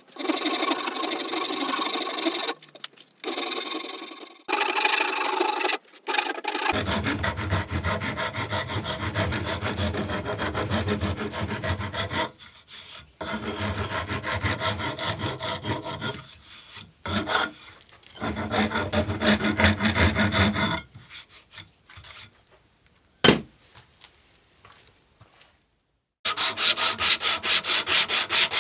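Rapid back-and-forth rubbing strokes of hand abrasive work on the hammer being restored, in several stretches with short pauses. A single sharp click comes near the three-quarter mark, and louder, quicker strokes start near the end.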